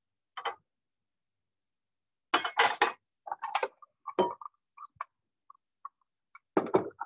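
Bowls and dishes clinking and knocking together as a big bowl is fetched: a scatter of short, sharp clinks, the loudest cluster about two and a half seconds in and another near the end, with a few brief ringing tones between.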